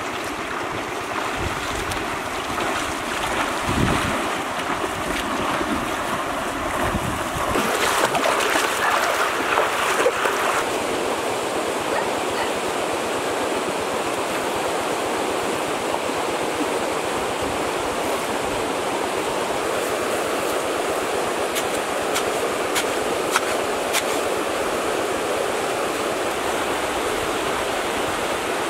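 Shallow river running with a steady rush of water. For the first ten seconds or so there is splashing and wading through the water, with low wind buffeting; a few sharp clicks come around three quarters of the way through.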